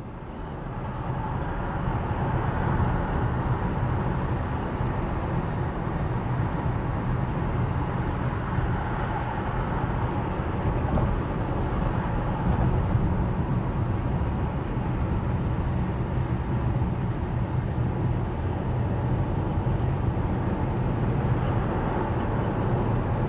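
Steady road and engine noise of a car cruising on a highway, heard from inside the cabin through a dashcam microphone: a continuous low rumble of tyres and engine that rises in over the first couple of seconds and then holds level.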